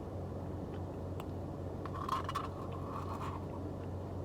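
Car air conditioning running with a steady hum. A few faint clicks and a brief scrape come about two seconds in.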